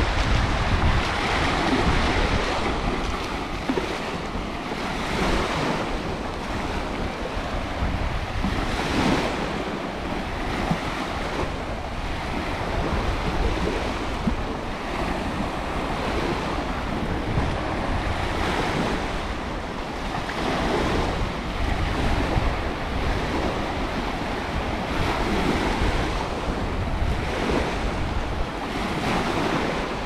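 Sea waves washing onto a sandy beach, the surf swelling and falling every few seconds, with wind buffeting the microphone as a low rumble.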